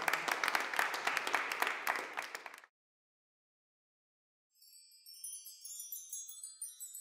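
Audience applause for about three seconds that cuts off abruptly. After a short silence comes a tinkling chime run that steps down in pitch, a sparkle sound effect.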